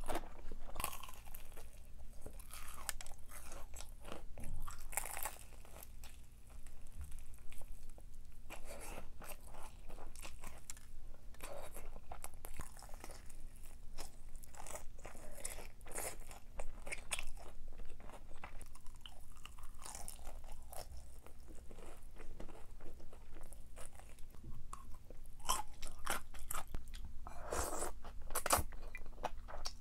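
A person chewing and crunching food close to the microphone: a run of irregular crisp crunches and bites.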